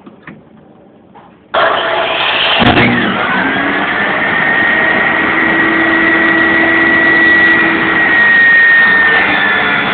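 Electric power saw starting suddenly about a second and a half in and running loudly, its motor whine rising and then holding steady over the noise of the blade cutting a board.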